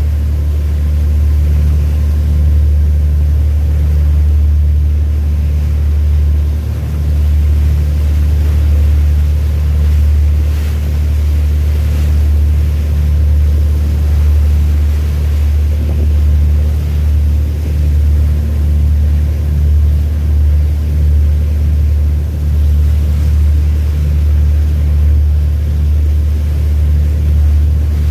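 Ship's engine running with a loud, steady low drone that pulses slightly through the second half.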